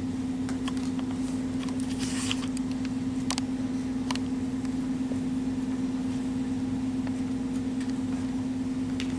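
Steady low hum at one unchanging pitch, with a few faint clicks and a brief rustle about two seconds in.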